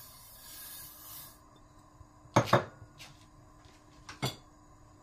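Sesame seeds pouring from a bowl into a hot non-stick frying pan, a soft hissing patter that stops about a second and a half in. Then a few sharp kitchenware knocks: two close together midway, a faint one just after, and one near the end.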